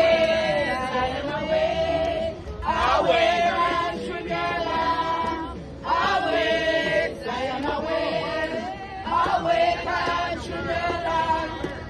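A group of men and women singing together without instruments, in sung phrases of two to three seconds with short breaks between them.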